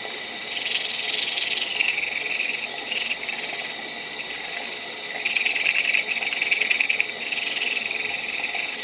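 Teeth being brushed with toothbrush bristles, a scratchy scrubbing of quick back-and-forth strokes that comes and goes in bursts.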